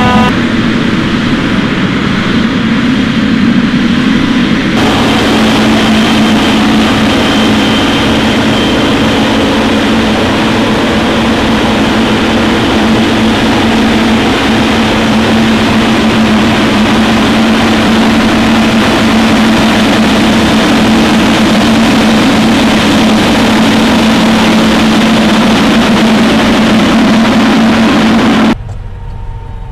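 Heavy farm machinery at work in a maize harvest, running loud and steady: a dense drone with a constant low hum. The sound changes abruptly about five seconds in and drops off sharply near the end.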